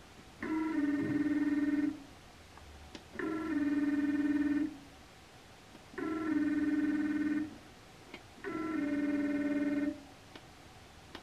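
NEMA 23 stepper motor turning the lathe spindle through a toothed belt in 10-degree indexing steps. There are four separate moves, each a steady whine of several tones lasting about a second and a half, with short pauses between them.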